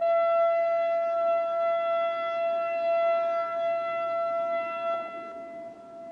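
Federal Signal 2001-SRN electronic warning siren sounding one steady tone, which slides briefly up into pitch as it starts and then holds level. About five seconds in it drops sharply in strength, and a fainter echo of the tone carries on.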